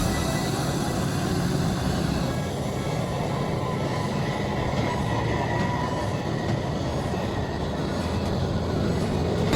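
Steady mechanical rumble and hiss of running factory machinery, even in level throughout, with a few faint steady whines above it.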